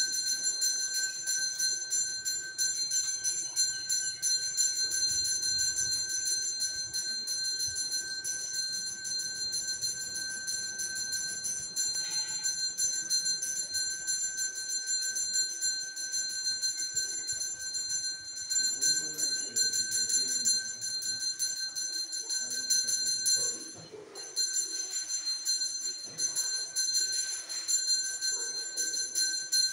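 A brass temple hand bell rung rapidly and without a break as an offering is made, a steady bright ringing. Near the end it stops for a moment, then starts again.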